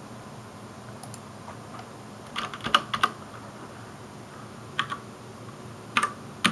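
Computer keyboard keys and mouse buttons clicking in a few short clusters, about two and a half, five and six seconds in, over a low steady room hum.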